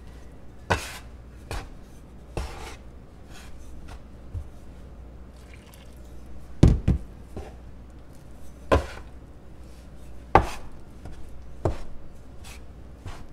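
Dough scraper knocking and scraping against the countertop as it chops hot water into flour and lard for flour-tortilla dough. The knocks come irregularly, about one every second or so, and the loudest fall a little past the middle.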